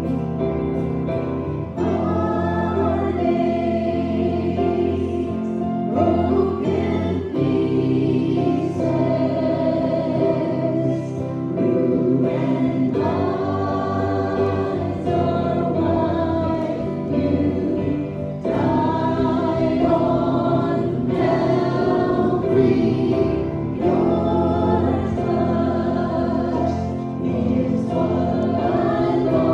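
A choir singing a gospel hymn with instrumental accompaniment.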